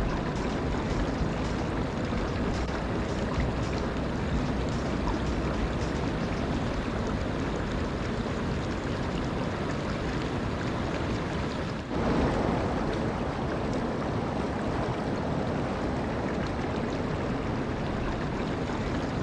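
Waterfall and running water rushing steadily, an even wash of noise. About twelve seconds in it drops out for an instant and comes back slightly louder.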